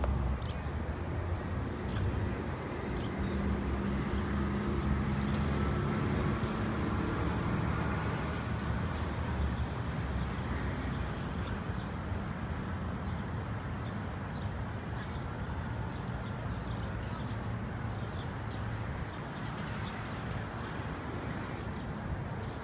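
Steady outdoor city traffic rumble. A passing engine swells for several seconds in the first half, then fades back into the hum.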